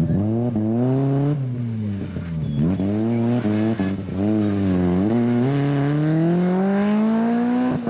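Renault Twingo rally car's engine revving hard as it pulls out of a tight corner. The pitch climbs and drops sharply with each gear change, with a brief lift off around two and a half seconds in, then one long steady climb in pitch that ends in an upshift near the end.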